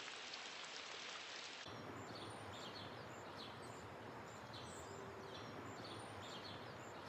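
Steady light rain hiss with drops pattering. About a second and a half in it changes abruptly to a softer wet background with small birds chirping over and over.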